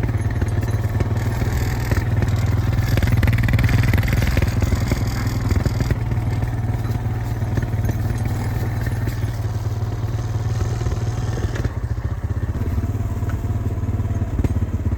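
Small vehicle engine running steadily at an even speed.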